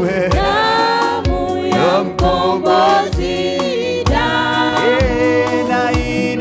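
Gospel worship song: voices singing over a steady drum beat.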